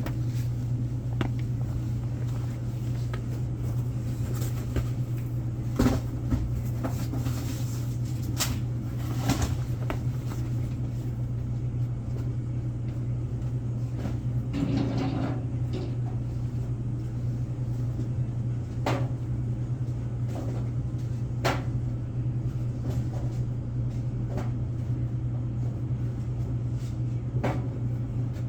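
Goods and boxes being handled while stock is put away: scattered knocks, clicks and light clatters over a steady low hum.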